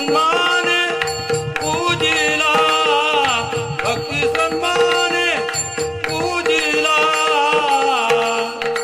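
Varkari bhajan: a male voice singing a devotional melody in long, bending phrases over a steady held drone note, with drum strokes and small hand cymbals keeping the rhythm.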